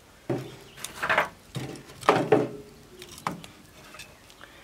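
Sticks of firewood being pushed and knocked into the firebox of a metal wood-burning stove with a metal poker: about six wooden clunks and clatters, one with a short metallic ring just after the middle.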